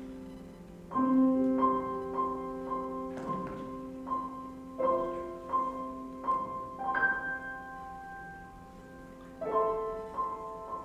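Slow instrumental music: sustained chords, with a fresh chord struck about a second in and again near the end, and a high note repeated about twice a second in between.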